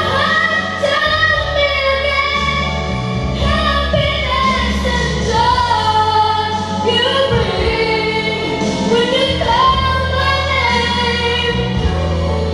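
A young woman singing a ballad through a handheld microphone, holding and sliding between notes, over instrumental accompaniment with a steady bass line.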